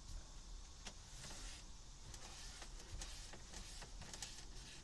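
Faint rag-on-plastic rubbing and small scattered clicks as a gloved hand wipes down a truck's steering wheel and dash, with a couple of brief swishes of wiping.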